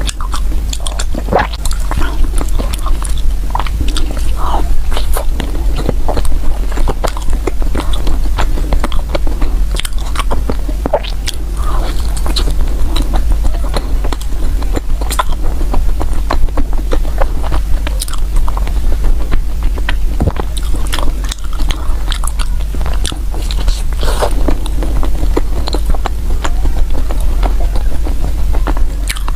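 Close-miked eating: a person biting and chewing food, with many small irregular mouth clicks and smacks, over a steady low hum.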